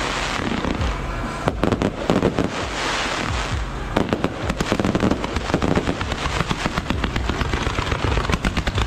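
Salute firecrackers and fireworks going off nonstop: a dense, rapid crackle of bangs with stretches of hissing, without a break.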